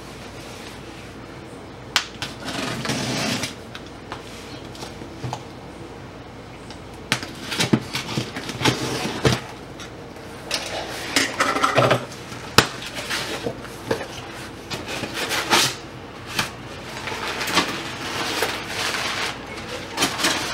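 Cardboard shipping box being cut open with a utility knife and unpacked: irregular scraping and rustling of cardboard and packing, with sharp clicks and knocks.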